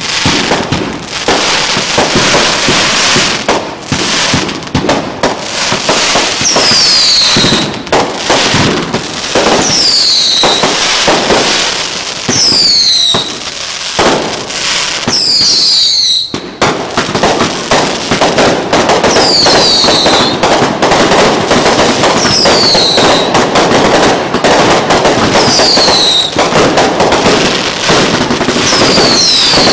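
Fireworks display: rapid booms and crackling bursts of aerial shells, with shrill whistles falling in pitch every two to three seconds from about six seconds in. After about halfway the barrage becomes denser and unbroken.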